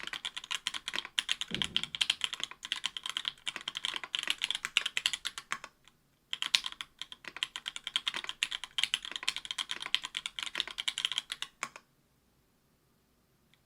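Fast typing on an Octagon V3 keyboard with stock Link Studio Jungle 62g linear switches, an aluminium plate and GMK keycaps: a quick run of keystrokes. There is a brief pause about six seconds in, then typing resumes and stops about two seconds before the end. One deeper thud sounds about one and a half seconds in.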